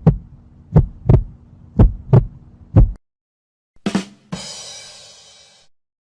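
Heartbeat sound effect: paired low lub-dub thumps about once a second, stopping about three seconds in. About a second later comes a short hit, then a bright ringing tone that fades away over about a second and a half.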